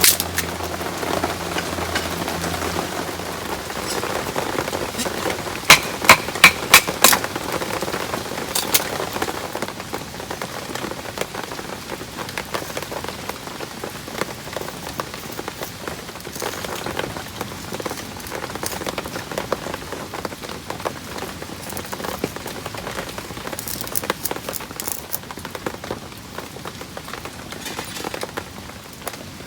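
Heavy rain falling steadily. A quick run of five or six sharp knocks or taps comes about six seconds in, and there are a few more later.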